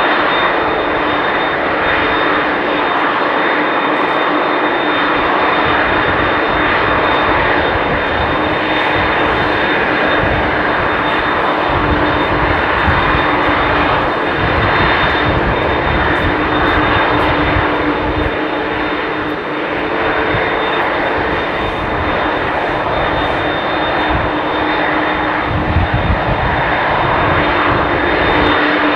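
McDonnell Douglas MD-11F freighter's three jet engines running loud and steady, a high steady whine over the roar, with low rumble swelling and fading.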